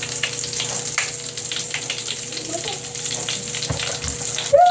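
Bath crackles (popping-candy-style bath granules) crackling and fizzing in a bowl of water: a dense, irregular run of small sharp pops over a steady hiss as the granules dissolve.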